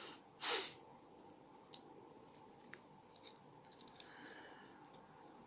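Light, scattered clicks of a small Victorinox Bantam Ecoline Swiss Army knife being handled, its tools and plastic scales ticking, with a short breath about half a second in.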